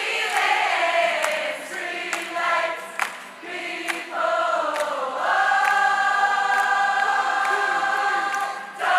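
A large crowd of mixed voices singing together as one unaccompanied choir, ending on a long held note in the second half, with a few sharp clicks over the singing.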